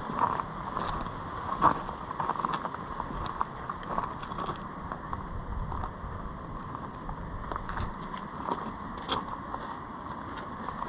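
Wind buffeting the microphone over a steady rushing noise, with scattered short taps and crunches throughout.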